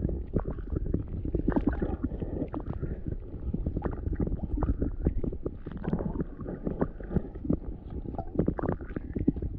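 Wind rumbling on the microphone over short, choppy wind waves slapping and lapping, with frequent irregular sharp clicks and knocks.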